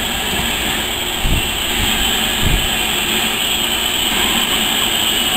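Steam locomotive and its coaches moving slowly past, a steady hiss with two dull low thumps about one and two and a half seconds in.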